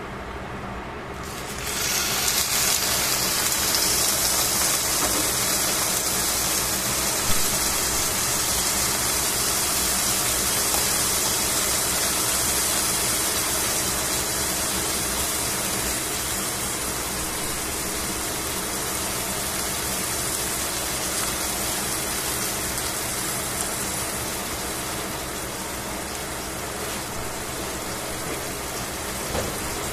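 A slice of pork sizzling in hot oil in a stainless steel pan. The sizzle starts suddenly about a second and a half in as the meat hits the pan, then carries on as a steady hiss that eases off slightly toward the end.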